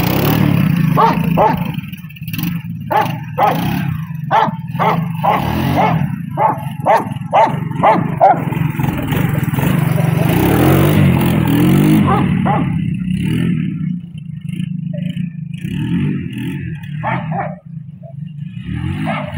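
A dog barking repeatedly at a running Honda three-wheeler, about two barks a second for the first several seconds and more sparsely later. Under the barking is the trike's steady engine note, which drops away in the second half as the machine moves off.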